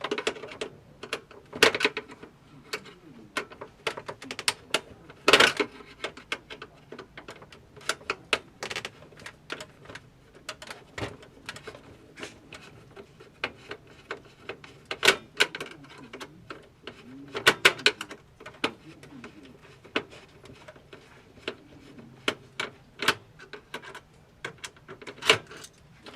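Irregular clicks and clinks of small hard objects being handled, with a few sharper knocks among them.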